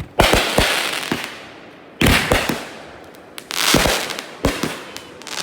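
Fireworks going off close overhead: four sharp bangs roughly one to one and a half seconds apart, each trailing off in a crackling hiss.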